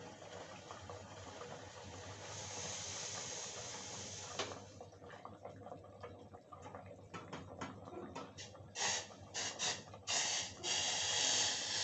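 Curry cooking in a kadai covered with a steel plate on a gas flame: steam hisses and sputters out from under the plate. There is a sharp click about four seconds in, then crackling that grows busier, and loud puffs of hissing steam in the last few seconds.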